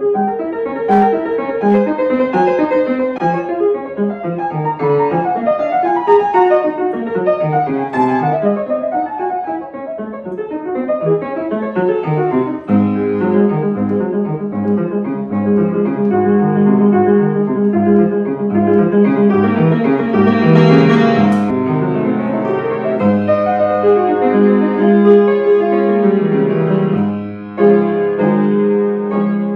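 Piano music: quick runs of notes at first, moving to fuller held chords over a steady low note about halfway through.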